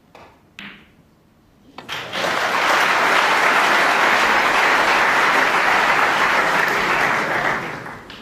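Two sharp snooker-ball clicks, the cue striking the cue ball and then the ball making contact, followed by audience applause that swells in quickly, holds for about six seconds and fades away near the end.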